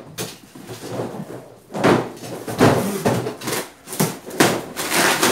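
A cardboard shipping box being handled and pulled open, with its packaging rustling inside. The scraping, crinkling and tearing comes in several loud bursts from about two seconds in.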